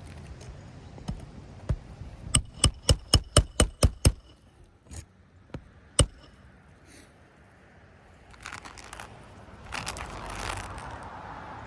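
Hammer striking roofing nails into asphalt shingles: a quick run of about eight ringing blows about two seconds in, then one more blow two seconds later. A scraping noise follows near the end.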